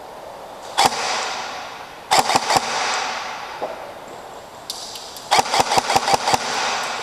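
Airsoft electric rifle firing: a single shot about a second in, a quick few shots around two seconds in, then a rapid string of shots from about five seconds in.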